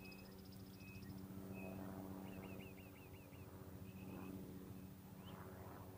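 Faint animal calls: short chirps and quick trills repeating every second or so, over a steady low hum.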